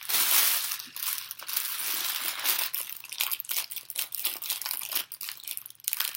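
Packaging of a hair bundle crinkling and crackling as it is handled and pulled open, loudest just at the start.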